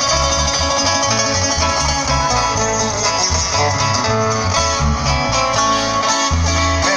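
Live band playing an instrumental passage: strummed acoustic guitars over a pulsing bass line and drums.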